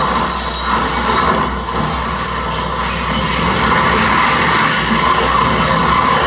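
Live harsh noise music played on a tabletop rig of electronic gear: a loud, dense, unbroken wall of noise with a low rumble beneath, swelling slightly about two-thirds of the way in.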